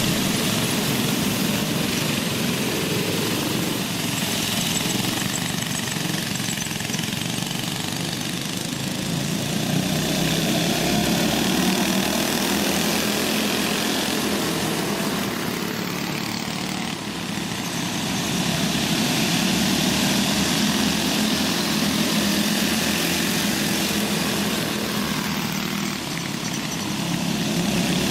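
A pack of small go-kart engines running on a dirt oval track, the sound swelling and fading as karts come past and move away.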